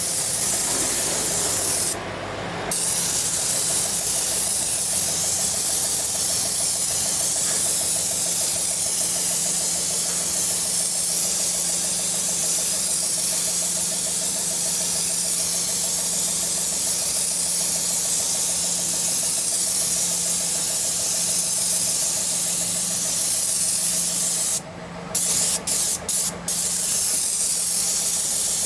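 Airless spray gun hissing steadily as it sprays coating, over a steady low mechanical hum. The hiss cuts off briefly about two seconds in, and again in a few short breaks near the end.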